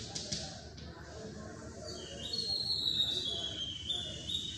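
Chalk drawing on a chalkboard: a few sharp taps as the chalk strikes the board, then, from about two seconds in, a run of high-pitched squeaks as the chalk is drawn along it.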